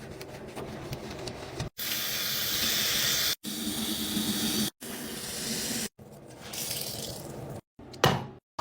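Water running with an even hiss, heard in several short clips that each cut off abruptly. A short, sharp loud sound comes about eight seconds in.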